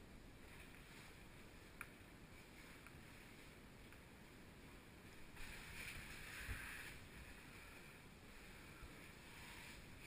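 Faint, steady rushing of an underground cave stream, with a brief louder splash-like rush and a low knock a little past halfway and a couple of small clicks.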